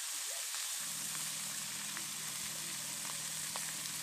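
Fish pieces sizzling steadily as they fry in hot oil in an iron kadhai, with a few light clicks of a metal spatula stirring them in the pan.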